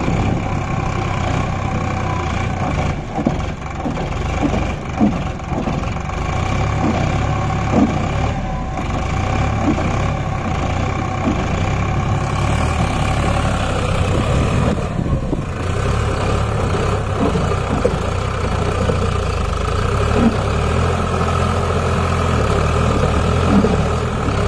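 Heavy diesel engine running steadily, with a few short knocks scattered through.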